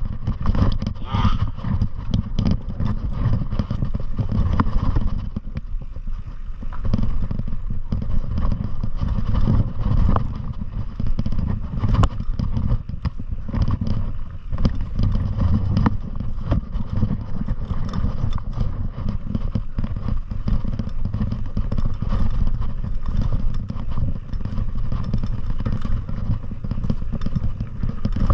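Continuous low wind rumble with dense, irregular rattling and knocking, as from moving fast downhill over rough, rocky ground.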